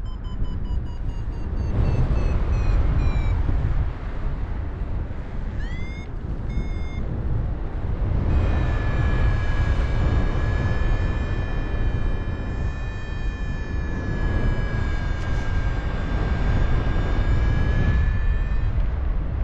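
Wind rushing over the microphone in flight, with a paragliding variometer sounding over it. The variometer gives short repeated beeps that fall a little in pitch, a brief rising chirp and two beeps about six seconds in, then one long steady tone for about ten seconds.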